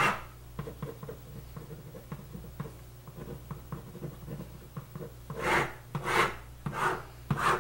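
Marker pen writing on a white surface: small scratchy strokes as letters are written, then four louder, longer swipes from about five seconds in as table lines are ruled.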